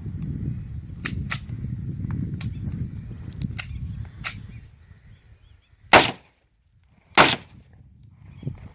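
Two pistol shots from a PX-3 .30 bore (7.62×25mm Tokarev) pistol, about a second apart in the second half. Before them come several fainter sharp clicks over a low rumble.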